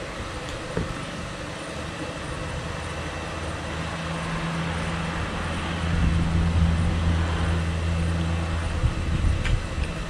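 A low, steady engine hum, as of a motor vehicle running close by, building about three seconds in, louder from about six seconds and falling away near the end, over a background hiss with a few faint clicks.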